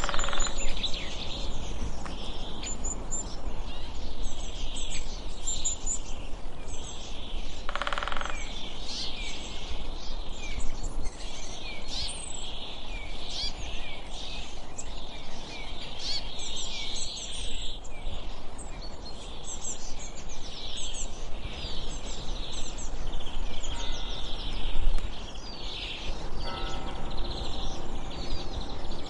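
A busy chorus of small songbirds chirping and trilling over a low steady rumble.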